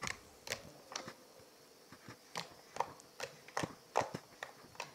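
Cookie dough slime being pressed and poked with the fingertips, giving sharp, irregular clicks, about two or three a second: really clicky.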